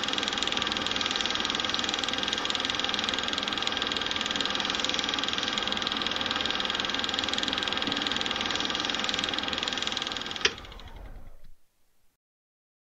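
A small machine running steadily with a rapid, fine clatter and a thin high whine. Near the end it gives a sharp click, runs more quietly for about a second, then stops.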